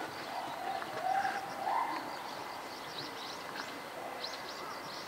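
Small birds chirping throughout, with a few short mid-pitched calls in the first two seconds.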